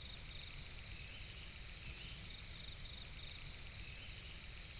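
Night insect chorus of crickets: a steady high shrill with fast pulsed trilling beneath it.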